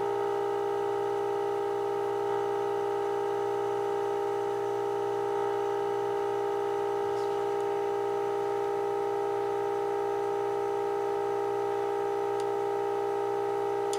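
Steady 400 Hz test tone played through a 1948 Emerson AA5 radio's speaker, the audio modulation of a 455 kHz signal-generator signal fed in for IF alignment. It holds at an even pitch and level while the IF transformer slug is tuned.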